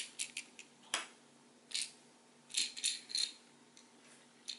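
Small plastic building-brick pieces clicking and rattling as they are handled: a brick treasure chest is picked up and turned in the fingers. A few short clicks come near the start and a cluster follows about two and a half to three seconds in.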